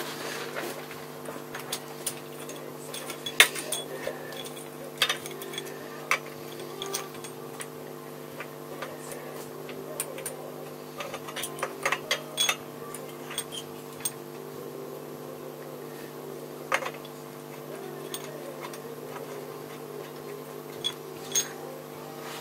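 Scattered small metallic clicks and taps from hands working on a motorcycle carburettor, one sharper click about three and a half seconds in, over a steady low hum.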